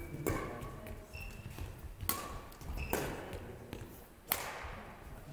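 Badminton rackets striking a shuttlecock during a rally, four sharp hits at uneven gaps of one to two seconds, each ringing briefly in the echo of a large sports hall.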